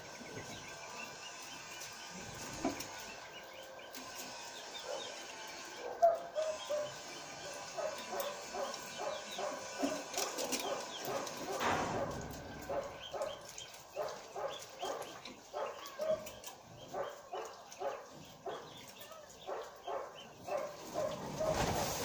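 A dog barking again and again in a quick run, starting about six seconds in, over the faint twittering of small aviary birds.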